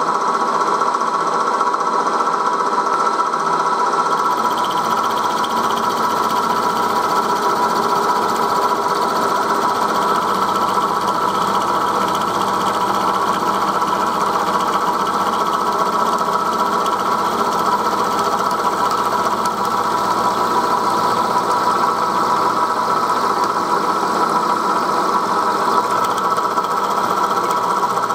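1938 Bridgeport M-head milling machine running steadily, its end mill cutting along the wall of a pocket in a metal cylinder block under flood coolant: a roughing pass that leaves about 3 thou for the finishing cut. The sound is a steady whine that does not change.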